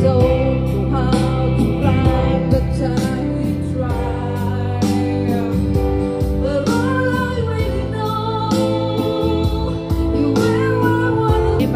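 Karaoke: a singer's microphone voice and a backing track with a steady beat, both playing through a JBL PartyBox party speaker.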